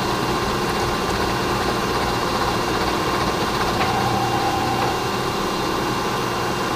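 Milling machine running steadily through a cut in a stack of vise-jaw workpieces. The top piece, clamped without its copper wire, is bouncing in the vise during the cut.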